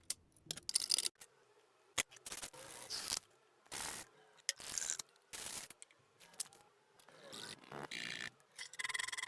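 Metal parts of a vintage toy cash register being handled and fitted back together: a string of short scrapes and rubs with a few sharp clicks, separated by brief silences.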